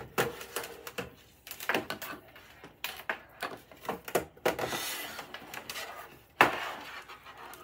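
A plastic-cased DVD player and its cables being handled on a desk: irregular clicks and knocks, a stretch of sliding noise, then one sharp knock about six seconds in, the loudest sound.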